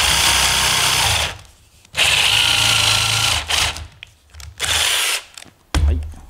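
Power drill boring screw holes into a wooden stool rail, running in three bursts: two of over a second each, then a shorter one. A short thump comes near the end.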